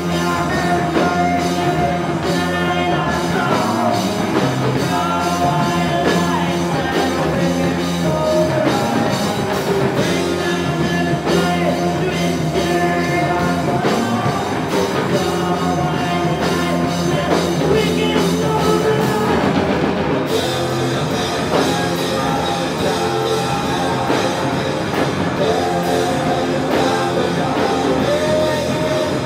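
Loud live heavy rock from a guitar-and-drums duo: distorted electric guitar over a drum kit with crashing cymbals, with singing at times.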